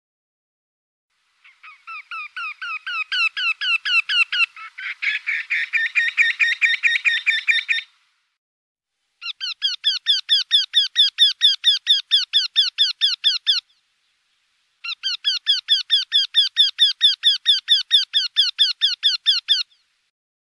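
Eurasian wryneck singing: three runs of rapid, evenly repeated notes with short gaps between them. The first run grows louder, and a second series of notes overlaps it about halfway through.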